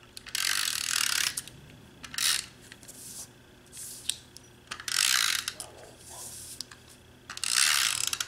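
Snail tape-runner adhesive dispenser drawn along the edge of a cardstock panel in four short strokes, laying down double-sided tape. The first and last strokes are the longest, each under a second.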